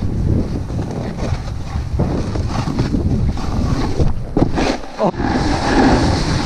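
Wind buffeting an action camera's microphone during a fast snowboard run, mixed with the board's base and edges scraping and hissing over snow, with a few sharper scrapes about two-thirds of the way in.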